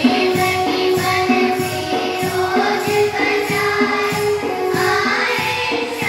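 A group of girls singing a song together in unison into microphones, with a steady percussion beat about twice a second underneath.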